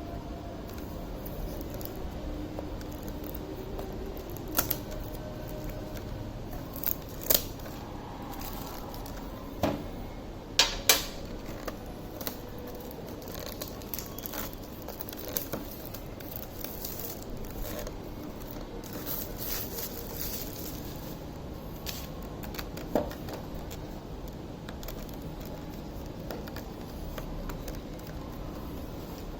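Handling sounds from unboxing an action camera: scattered sharp plastic clicks and light knocks, the loudest a quick pair about eleven seconds in, over faint rustling of packaging.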